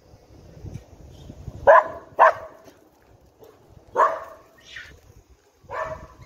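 Dog barking: four loud, sharp barks, two close together a couple of seconds in, one at about four seconds and one near the end.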